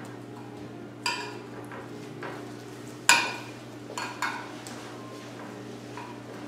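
Metal spoon stirring apple and oat mixture in a glass baking dish, clinking sharply against the glass about five times, the loudest about three seconds in.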